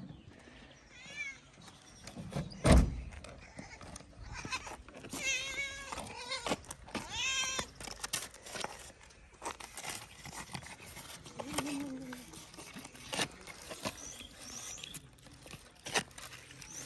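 Stray cats meowing several times for food, mostly in the first half, with a loud thump about three seconds in. Scattered clicks and rattles follow as dry kibble is poured into plastic trays.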